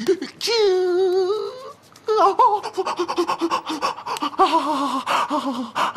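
A man crying out in pain: one long, wavering wail starting about half a second in, then a run of broken, wavering groans.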